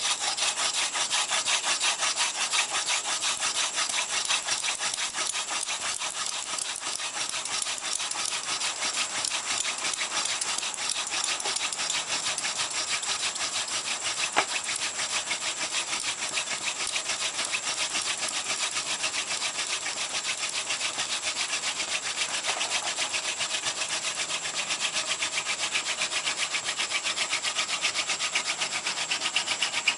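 Hand-drill friction fire: a yucca spindle spun between the palms, grinding in a notched tinder fungus base. It makes a fast, even rasping rub that continues steadily while the spindle bores in and the notch fills with hot, smoking dust.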